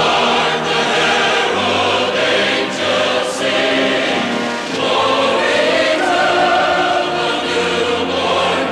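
Choir singing with musical accompaniment, sustained held chords.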